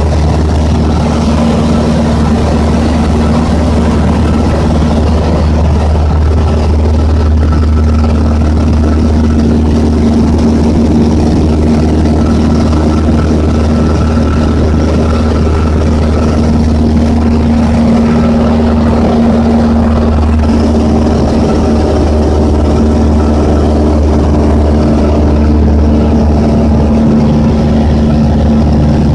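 Piper Pacer PA-22's 180 hp four-cylinder engine and propeller in cruise, heard inside the cabin as a loud, steady drone.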